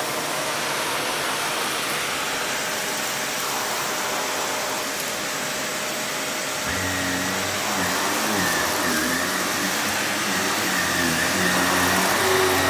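Upright vacuum cleaner running steadily. About halfway through, a deeper hum with a wavering pitch joins in and the sound grows a little louder as the vacuum works onto the runner rug.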